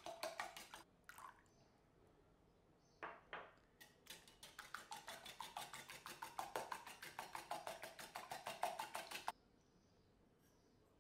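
A kitchen utensil beating ingredients in a mixing bowl, clicking rapidly against the bowl at about seven or eight strokes a second for several seconds, then stopping suddenly. A few separate knocks of utensils on dishes come before it.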